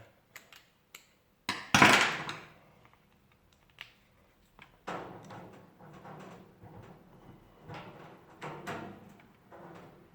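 Parts of an electric oven being handled and fitted during reassembly: a few small clicks, a loud clatter or scrape about two seconds in, then scattered scraping and light knocks.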